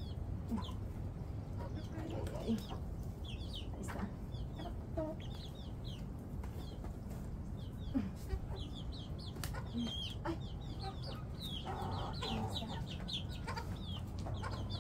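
Chickens clucking and chirping on and off, over a steady low rumble, with a few sharp knocks.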